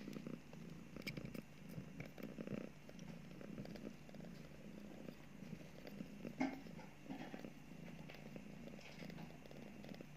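Nursing mother cat purring steadily. A few brief sharper sounds stand out, the loudest about six seconds in.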